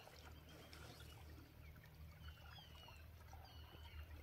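Near silence: faint outdoor ambience with a low rumble and several faint, short bird calls in the middle stretch.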